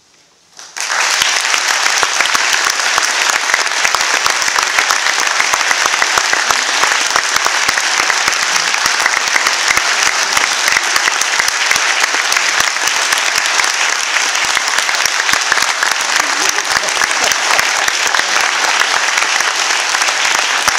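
Audience applauding. The clapping starts suddenly less than a second in, after a brief hush at the end of an orchestral piece, and stays dense and steady.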